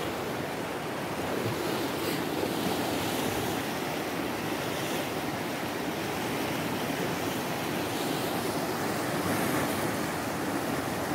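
Mountain river rushing: a steady, even noise of flowing water.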